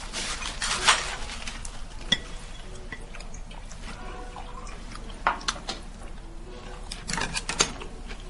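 Light clinks and clatter of tableware handled on a table, in a few short clusters: near the start, about two seconds in, just after five seconds, and around seven seconds.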